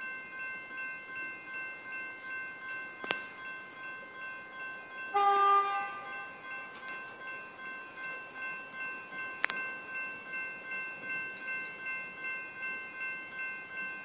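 Level crossing warning bell ringing in steady pulses about twice a second, with a short, loud electric train horn blast about five seconds in. Two sharp clicks, one about three seconds in and one past halfway.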